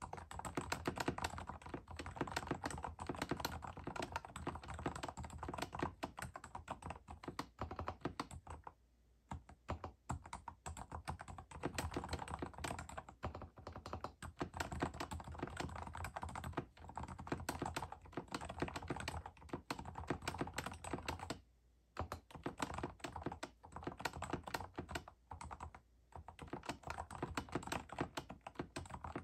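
Typing on a Kensington MK7500F QuietType Pro silent mechanical keyboard: a fast, continuous run of keystrokes, broken by a few brief pauses.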